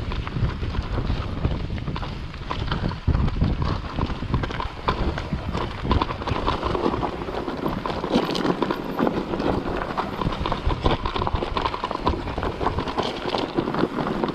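Mountain bike rolling over a loose, stony trail: tyres crunching on the stones and the bike rattling with many quick, irregular knocks.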